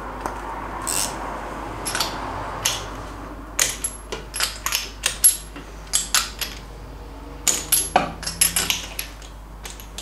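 Irregular metallic clicks and clinks of spark plug leads and spark plugs being taken off an MGB engine, coming in two quick flurries from about four and about eight seconds in.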